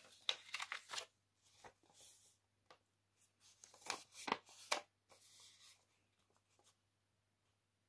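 Faint crinkling and rustling of a folded paper airplane as its last crease is pressed and the plane is picked up and handled. The crisp sounds come in two short clusters, in the first second and again around four seconds in.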